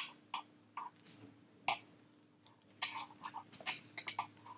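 Plastic vacuum attachment pieces clicking and knocking together as they are fitted onto a vacuum hose: a few scattered clicks, then a quicker run of small taps from about three seconds in.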